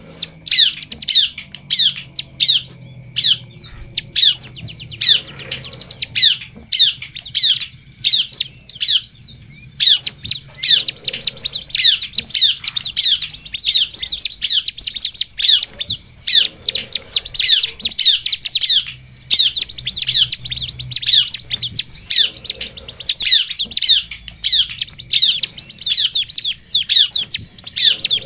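Bar-winged prinia (ciblek) singing in long, fast runs of sharp, downward-sweeping chirps, with a few higher arched notes among them, over a thin steady high tone.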